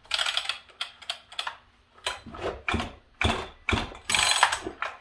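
Two-stroke chainsaw's recoil starter pulled in a quick series of short strokes, the rope and starter ratcheting as the engine turns over against compression. It is being turned over by hand to check the compression of a scored cylinder, which still has some.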